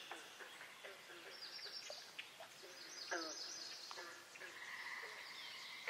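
Faint birdsong: several small birds chirping and trilling, with short falling calls and a held steady note near the end.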